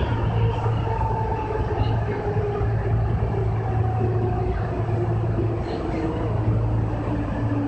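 Kintetsu 6020-series electric train running, heard from inside the cab: a steady low hum under a motor and gear whine that falls slowly in pitch as the train slows into a station.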